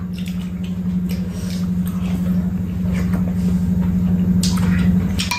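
A steady low mechanical hum, with a few faint clicks of spoons on bowls near the end.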